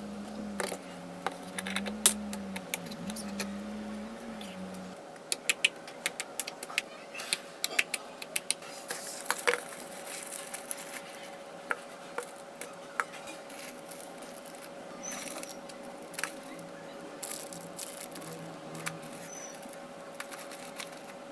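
Slime being pressed and poked, making a run of sharp little clicks and pops, busiest through the middle, over a faint steady hum.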